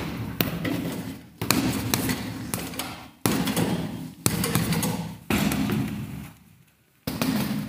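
Boxing-glove punches landing: a series of about seven heavy thuds, roughly one a second, each trailing off.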